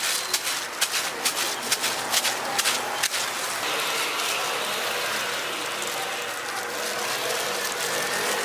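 Cooking noise at a hotteok stall: quick clicks and taps of utensils, several a second, for about three seconds, then a steady hiss.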